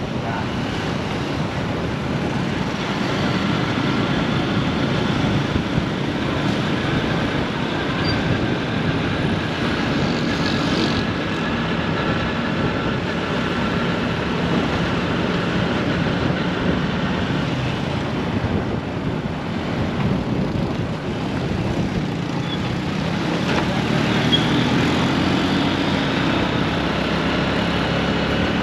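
Steady road traffic: vehicle engines running and passing without a break.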